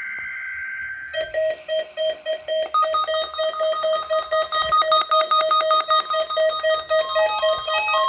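Electronic emergency-alert test tones. A steady buzzing data tone cuts off about a second in, then rapidly pulsing electronic beeps set in. Higher beeps join about three seconds in, and a stepping pattern of tones sounds near the end, giving a chime-like, melodic effect.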